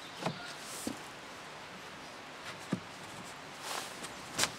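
Shoes shuffling and stepping on stone patio paving, with a few light knocks spread out and a sharper one near the end, over a steady background hiss.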